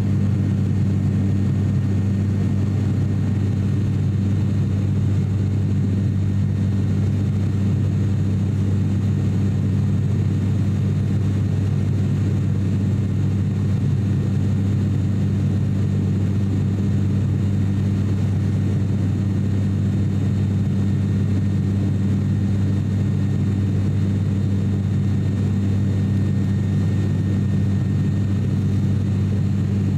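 Steady drone of an ATR 42-600's Pratt & Whitney PW127M turboprop engines and propellers in flight, heard inside the passenger cabin. A strong, even low hum from the propeller blades sits over the rush of engine and airflow noise, unchanging throughout.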